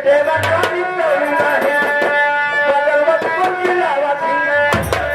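Folk stage music: drum strokes, with deep low thumps about half a second in and again near the end, under a held, slightly wavering melody line.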